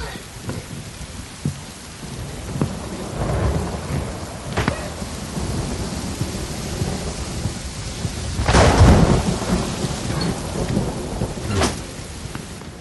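Heavy rain pouring onto pavement in a thunderstorm, with a steady hiss. Thunder cracks about a third of the way in and again near the end, and the loudest, longest thunderclap comes about two-thirds through.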